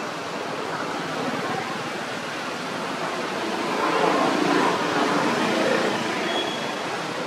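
Steady rushing noise, like running water or wind, swelling a little around the middle.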